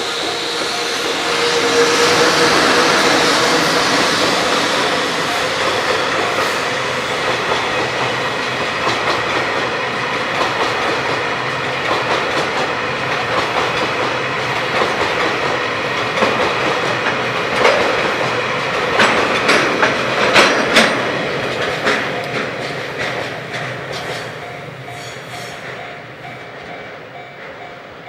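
JR Freight train passing close by, its wagon wheels clattering steadily over the rails. A cluster of sharper clacks comes about two-thirds of the way through, then the sound fades away near the end.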